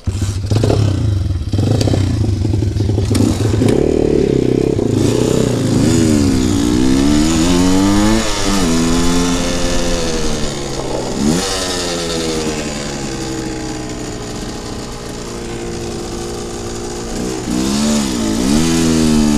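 Pit bike's engine pulling away and accelerating, its revs climbing and dropping sharply at each gear change, twice, then running at a steady cruise before easing off and picking up again near the end.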